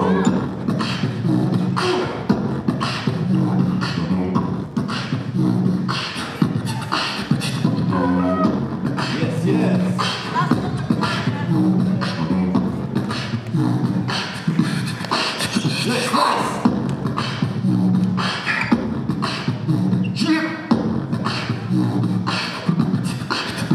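Live beatboxing amplified through handheld microphones: a steady beat of mouth-made kick, snare and hi-hat sounds over a held bass note.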